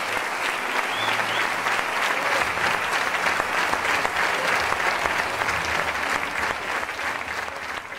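Theatre audience applauding, a steady dense clapping of many hands.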